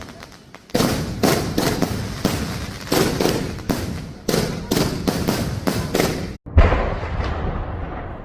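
Diwali firecrackers going off in rapid, irregular succession, one sharp bang after another. About six seconds in the sound cuts out for a moment and a heavy low rumbling follows.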